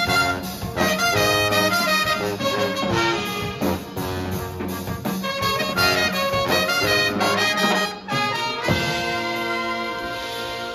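Live brass band of trumpets, trombone, saxophones and sousaphone over a drum kit, playing a jazzy swing tune. About 8 seconds in it breaks off briefly, then closes on one long held chord.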